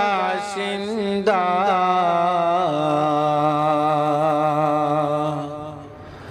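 A man singing a Bengali Islamic gojol solo: an ornamented, wavering phrase on the word "basinda", then one long held note that fades away near the end.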